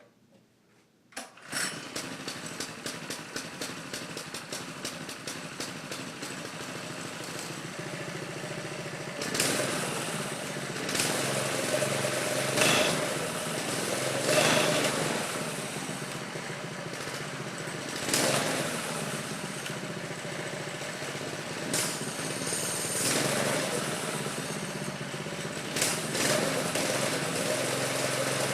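A 212cc Predator single-cylinder engine on a mini bike starts about a second in and settles into a steady idle. It is then revved in several short throttle blips, each rising and falling back to idle.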